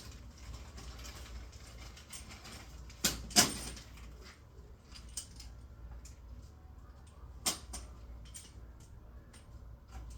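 Scattered sharp knocks and clicks of tools and garage door hardware being handled. The loudest are two knocks close together about three seconds in, and another about seven and a half seconds in.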